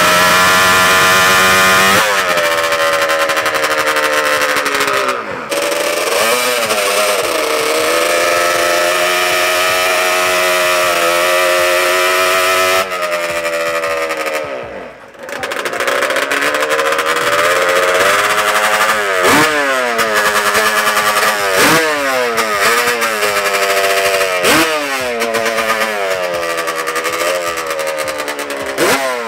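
High-revving drag-racing engines at full throttle, pitch climbing and then dropping sharply with each upshift, over and over. The sound changes abruptly twice, as if it comes from separate passes.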